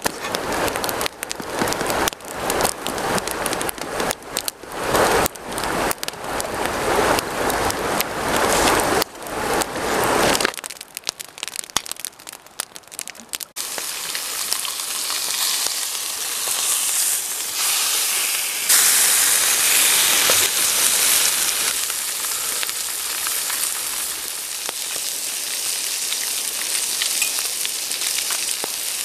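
For about the first ten seconds, irregular close rustling and scraping as the frying pan is handled. Then whole Arctic grayling frying in a pan over a campfire: a steady sizzle that gets louder a few seconds later and carries on.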